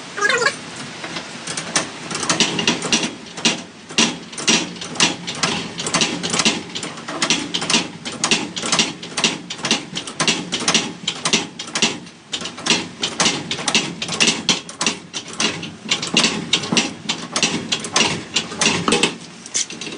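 Rapid, uneven mechanical clicking and rattling, a few clicks a second, from tension being put on a garage door spring.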